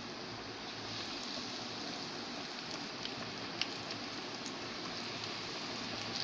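Flour-coated chicken deep-frying in hot oil in an aluminium karahi on a medium-low flame: a steady sizzle and bubbling, with a few small crackles and one sharper pop about three and a half seconds in.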